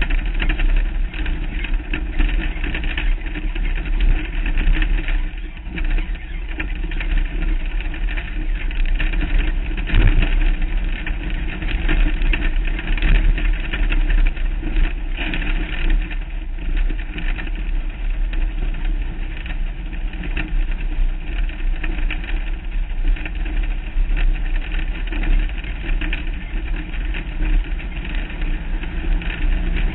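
Off-road race car driving at speed over a rough desert dirt track: its engine running steadily under load, mixed with continuous rumble and frequent small jolts from the chassis over the bumps.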